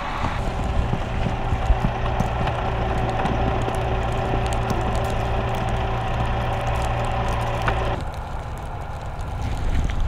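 A vehicle engine running steadily with a low, even hum; the sound changes abruptly about eight seconds in.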